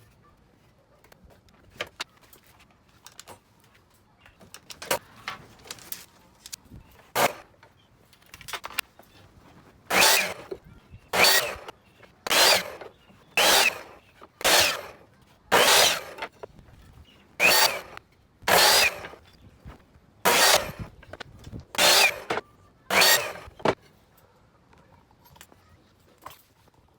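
Repeated rasping strokes of a hand tool worked across wood. There are faint, scattered strokes at first, then about a dozen loud strokes roughly one a second, which stop a few seconds before the end.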